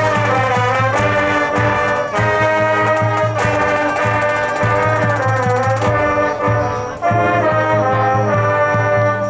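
High school marching band playing, with the brass section holding loud chords over a repeating low bass pulse and sharp percussion strokes.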